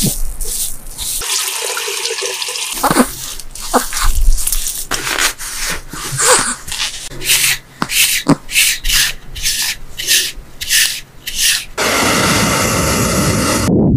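Fingers scrubbing a cat's wet, foam-lathered face and chin fur close to the microphone: a series of irregular rubbing strokes, about one or two a second. Near the end a steady rushing noise comes in.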